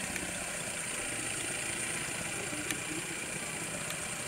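A stationary safari jeep's engine idling with a low steady hum, under a steady high-pitched drone. A single sharp click comes about three seconds in.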